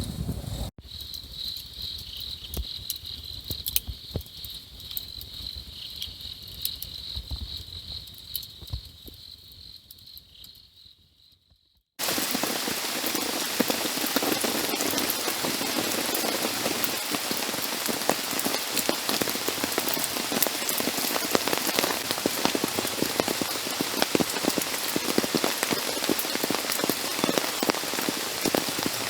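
Insects trilling steadily in a high, even band, with a few small clicks, fading out over about ten seconds. After a sudden cut about twelve seconds in, heavy rain patters steadily on a surface.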